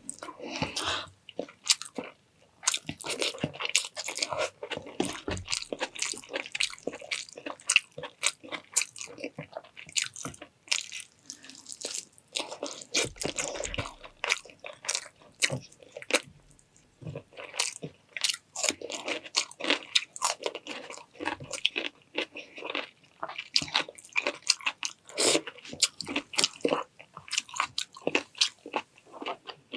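Close-up chewing and crunching of food, with many crisp clicks and wet smacks of the mouth, pausing briefly about halfway through.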